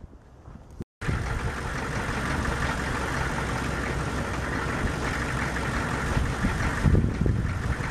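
6.5-litre V8 diesel engine of a 1998 GMC Sierra 3500HD idling steadily. It comes in abruptly about a second in, after a moment of faint wind.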